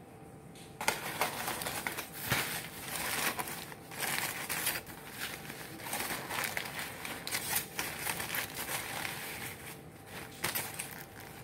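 Aluminium foil crinkling and crumpling as it is pulled and peeled open by hand, an irregular run of crackles starting about a second in.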